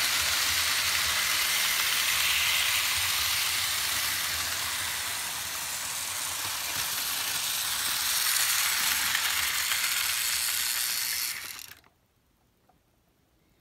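Vintage Märklin HO model trains running on stamped-metal M-track: the steady rushing rumble of wheels on the steel rails with a low motor hum. It cuts off suddenly near the end as the trains stop.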